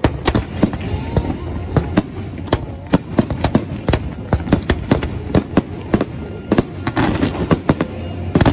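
Aerial fireworks shells bursting in rapid succession, several sharp bangs a second, coming thicker near the end.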